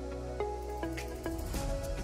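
Background music: a melody of short pitched notes, joined about three-quarters of the way in by a light, quick beat of high ticks.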